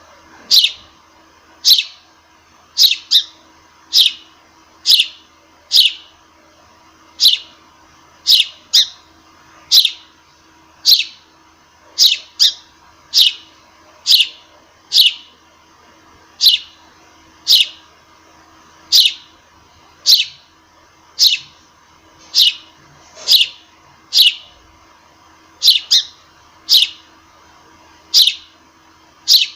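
Sparrow chirping: single short chirps about once a second, now and then two close together, each a quick downward-sliding note.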